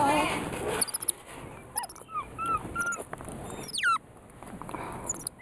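Weeper capuchin monkey making short, squeaky, whimpering chirps several times in a row, with one quick sweeping squeak about four seconds in.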